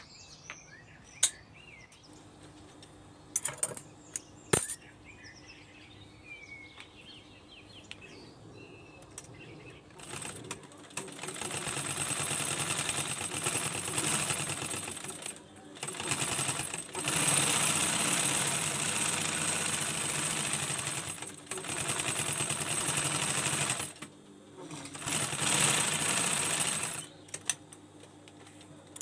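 Industrial sewing machine stitching along the edge of an EVA foam sandal sole. It runs in rapid, continuous stitching spells from about a third of the way in, stopping briefly twice and halting near the end.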